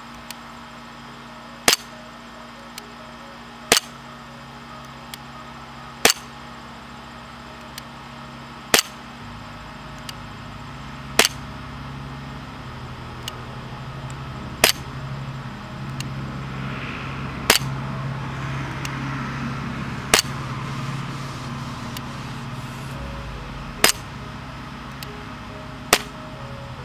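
Elite Force 1911 Tactical CO2 blowback airsoft pistol firing single shots through a chronograph: about ten sharp cracks, two to three seconds apart. It is shooting on a CO2 cartridge that is not fresh, which keeps velocities low, around 215–230 fps.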